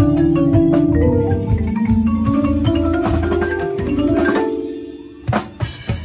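Marimba played close up with mallets, a run of notes climbing in pitch over lower music beneath. About five seconds in the music fades away, then a couple of sharp strikes come before it starts up again.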